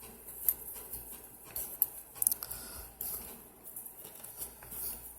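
Light, irregular clicks and scrapes of thin steel lock-pick tension tools being handled by fingers, with a few sharper ticks among them.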